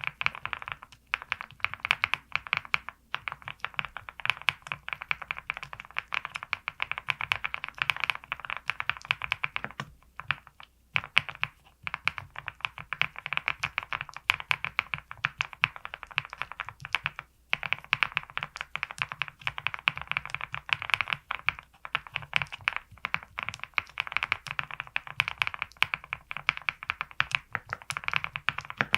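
Continuous fast typing on a VARO V75 Plus 75% custom mechanical keyboard built with lubed XY Studio Bsun X linear switches, a polycarbonate plate, full foam and PBT keycaps. The keys clack in quick runs, with short pauses about a third of the way in and again a little past halfway.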